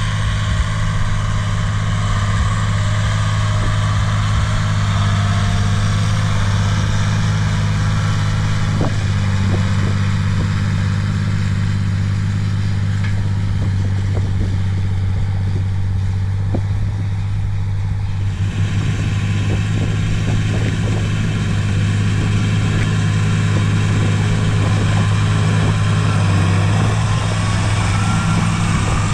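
John Deere 8100 tractor's six-cylinder turbo diesel engine running steadily under load while pulling an offset disc harrow through tilled soil. The sound changes character about two-thirds of the way through.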